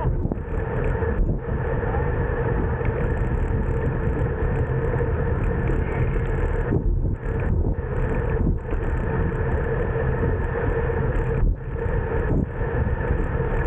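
Steady wind and road noise from riding a bicycle, the even rush broken by a few brief dips.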